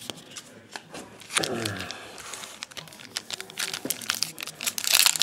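Foil wrapper of a Bowman Platinum baseball card pack crinkling and tearing as it is ripped open by hand, with light clicks of cards being handled. The crinkling is loudest near the end.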